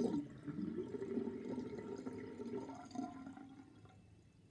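Sink drain gurgling as the last of the water runs out, the loud gurgle breaking off at once into a quieter, uneven gurgle that fades and stops about four seconds in.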